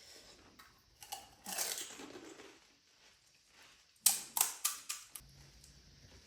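Crisp pani puri shells cracking and crunching, with a quick run of about five sharp cracks about four seconds in.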